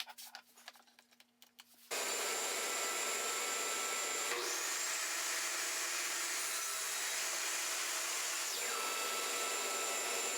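A DeWalt table saw switching on about two seconds in and running steadily, after a few light handling clicks. Its sound changes for a few seconds in the middle as the blade cuts through a board.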